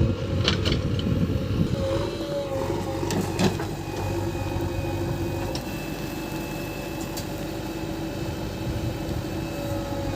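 JCB backhoe loader's diesel engine running steadily with a low hum, with a few sharp metallic clanks, the loudest in the first few seconds.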